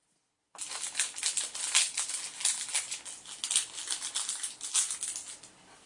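Foil Yu-Gi-Oh booster pack wrapper crinkling and being torn open, a loud, dense crackling that starts suddenly about half a second in and fades near the end.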